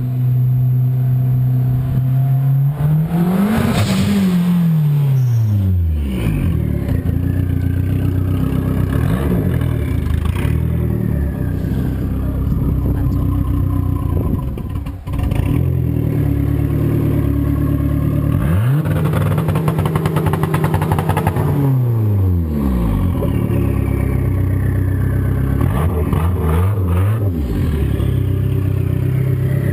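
Dodge Neon SRT-4's turbocharged four-cylinder engine pulling hard in first gear with the turbo's dump open, its pitch climbing, then dropping steeply as the car passes about four seconds in. After that the engine is revved repeatedly, each rev rising and falling back.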